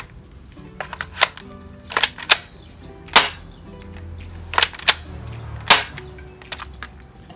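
Spring-powered airsoft rifle being cocked and fired repeatedly: a string of sharp snaps, about seven loud ones at uneven intervals, with smaller clicks between them.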